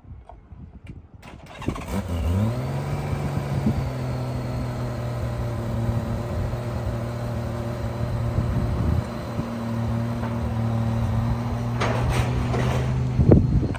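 Honda Gold Wing motorcycle engine starting about a second and a half in, its pitch rising briefly as it catches and then settling into a steady idle. A couple of sharp knocks near the end.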